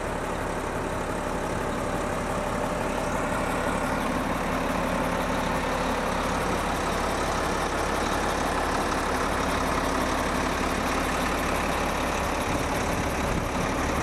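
Volvo A30F articulated dump truck's diesel engine idling steadily.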